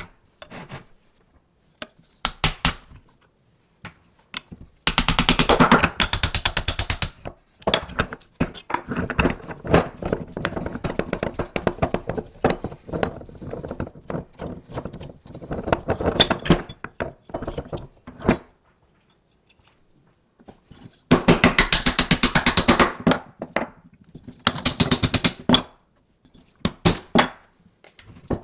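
Metal clinking and scraping in several long bursts of rapid strokes with short pauses between, as in hand work on small metal machine parts.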